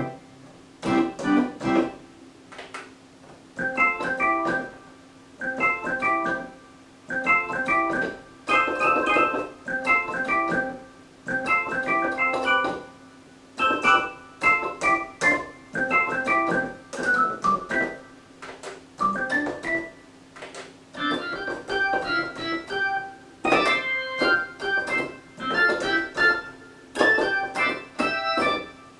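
Roland RS-70 synthesizer played in short phrases of notes, each about a second long with brief pauses between, on a keyboard patch. The tone turns brighter about twenty seconds in.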